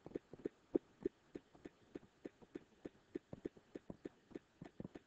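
Faint, quick taps of a stylus on a tablet screen during handwriting, about three or four soft taps a second in an uneven rhythm.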